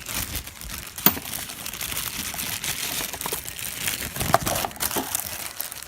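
Rustling and crinkling handling noise while washers are fetched for the fork rebuild, with a couple of sharp clicks, one about a second in and another past the four-second mark.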